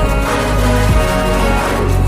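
Background music with steady sustained notes over a strong bass.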